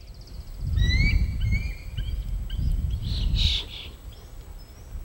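Wild birds calling with short rising chirps and whistles, one harsher call about three and a half seconds in, over gusts of wind buffeting the microphone.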